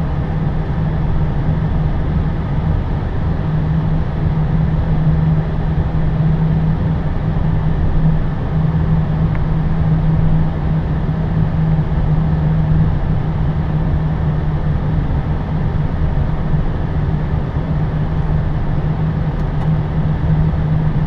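Steady rumble with a constant low hum inside the cockpit of an Airbus A320 airliner rolling along the runway.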